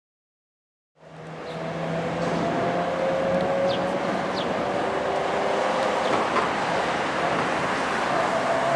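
A car engine running steadily under a noisy outdoor hiss, starting abruptly about a second in.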